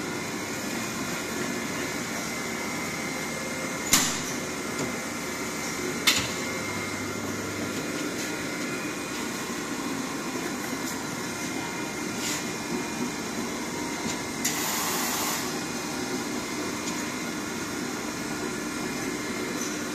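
DEM IC 4520 L-sealer and shrink-tunnel machine running with a steady fan hum. Two sharp clacks come about four and six seconds in, and a hiss lasting about a second comes about three-quarters of the way through.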